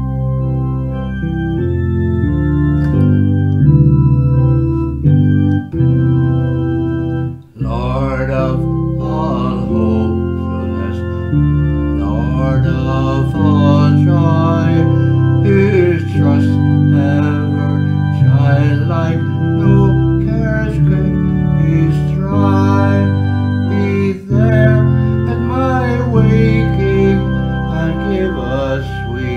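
Organ music: held chords, with a higher wavering melody line coming in over them about seven and a half seconds in.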